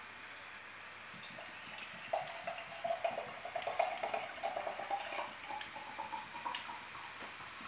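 Cider poured from a can into a tall glass, an uneven splashing pour whose pitch rises slowly as the glass fills, tailing off near the end.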